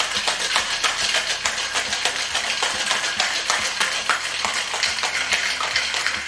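Ice cubes rattling hard inside a cocktail shaker being shaken vigorously, a fast continuous clatter that stops abruptly near the end.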